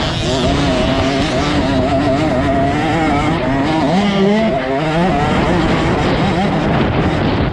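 Motocross bike engine running hard under the rider's throttle, its pitch wavering and shifting about four seconds in, heard from the rider's onboard camera with wind rushing over the microphone.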